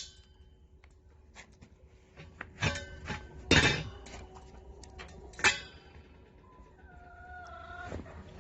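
Four sharp metallic knocks with a brief ring after each, as of metal struck against metal; the loudest comes about three and a half seconds in.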